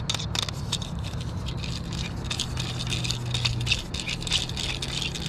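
Fishing rod and reel being handled while a hooked fish is fought, making dense, irregular rattling and clicking, over a steady low hum.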